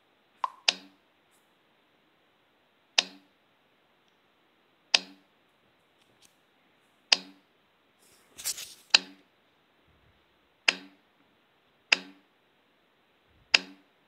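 Strange short click-like Messenger notification sound from a Pocophone F1's speaker, repeating about every one and a half to two seconds, each a sharp click with a brief low tail and one doubled near the start. This is the unexplained tone Messenger plays when its notification sound is set to the bare ID 2131755087 instead of a named sound.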